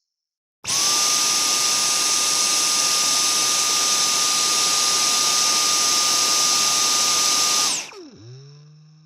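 Vacuum cleaner switched on about a second in: the motor spins up quickly to a steady high whine over a loud rush of air. It is switched off near the end and winds down, its pitch falling as it fades.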